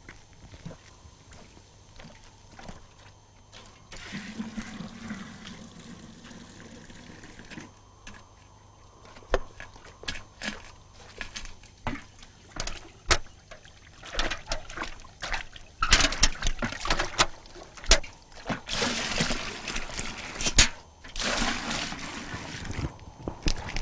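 Water splashing and pouring as a clay pot is filled by hand at the edge of a pond, with small knocks and dribbles between. The loudest splashing comes in three bursts in the last third.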